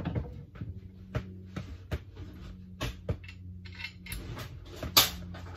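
Metal hand tools clinking and clattering on a workbench as they are picked up and handled: a string of irregular clicks and knocks, with one sharp, loudest clank near the end. A steady low hum runs underneath.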